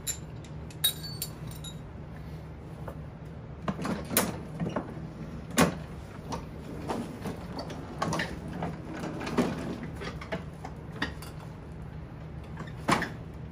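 Scattered knocks and clunks as a Toro TimeMaster push mower is handled and tipped over onto its side, the loudest knock about five and a half seconds in. A steady low hum runs underneath.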